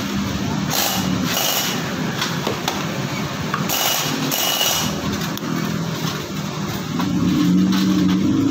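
Yamaha Soul GT scooter engine running with a rough, noisy clatter. The engine's oil is nearly empty after going too long without an oil change.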